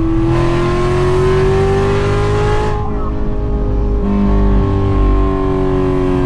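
Cammed 6.2-litre V8 of a manual C7 Corvette pulling hard. Its pitch climbs steadily for about two and a half seconds with a hiss over it, then the hiss stops and the engine eases off, its pitch falling slowly.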